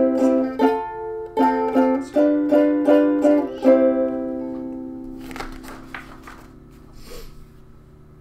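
A plucked string instrument picks a short bouncy tune of quick notes, and the last note rings out and fades about four seconds in. Then comes a soft paper rustle as a book page is turned.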